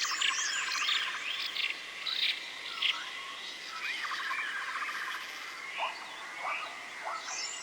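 Forest ambience: many birds chirping and calling in short rising and arching notes over a steady high insect drone and rattling trills.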